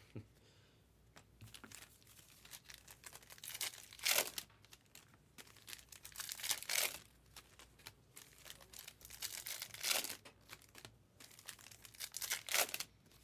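Trading-card pack wrappers being torn open and crinkled by hand, in short scattered rustles, the loudest about four and seven seconds in.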